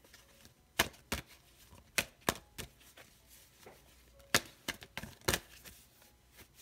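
Tarot cards being shuffled by hand off-camera: sharp, irregular clicks and snaps in two clusters, with a pause between them.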